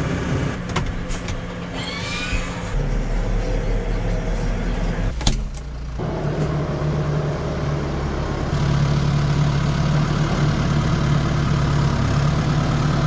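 Diesel tractor engine running close by, growing louder and steadier from about two thirds of the way in as the tractor backs up to the slurry tanker's drawbar. A single sharp knock sounds about five seconds in.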